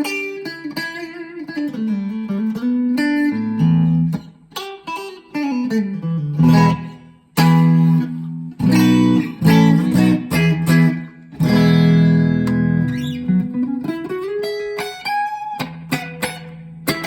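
Schecter OL-PT-TH thinline electric guitar played through a small VOX Mini5 practice amp, mixing single notes and chords, with notes sliding and bending up and down in pitch and a few short pauses between phrases.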